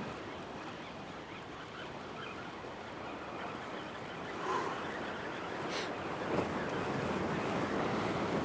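Ocean surf washing against the jetty's boulders, a steady rushing noise. There is a single sharp click a little past the middle.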